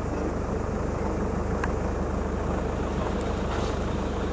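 Vehicle engine idling, a steady low rumble with an even pulse.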